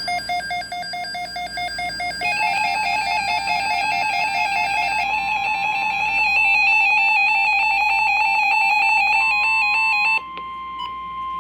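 Buzzy electronic alert beeping in a quick, stepping melodic pattern, joined about five seconds in by the steady single-pitch NOAA Weather Radio alert tone. The beeping stops near the end and the alert tone carries on alone for a moment.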